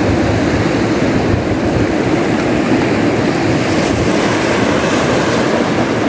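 Steady rush of breaking surf mixed with wind buffeting the microphone.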